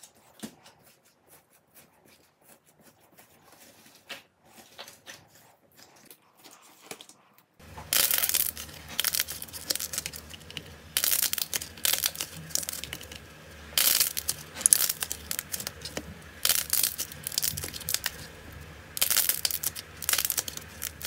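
Fingers pressing into a soft foamy yellow slime with faint sticky clicks, then, about seven and a half seconds in, much louder crackly tearing and squishing as a thick blue-and-pink slime is pulled apart and kneaded by hand, in repeated spells about a second long.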